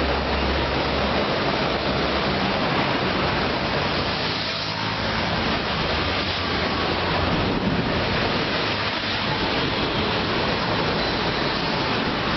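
Steady rush of passing road traffic and engine noise, with no horn sounding; it eases briefly twice in the middle.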